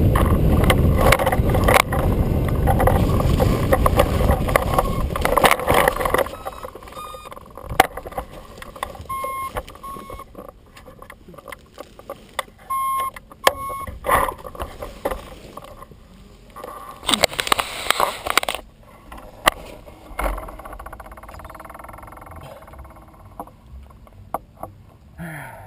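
Rushing airflow over a rigid-wing hang glider on final approach, loud and steady, with no engine: it is the noise of the air at flying speed. It falls away suddenly about six seconds in as the glider slows and touches down. After that come a few short electronic beeps, twice in pairs, and some brief rustling.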